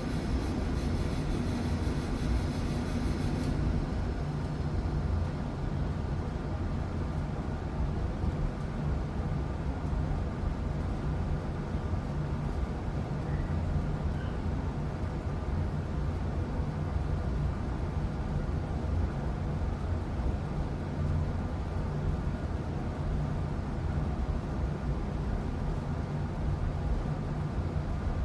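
Old Bryant gas furnace running down after being switched off: a steady low mechanical hum, with a hissing upper layer that cuts out about three and a half seconds in while the low hum keeps going.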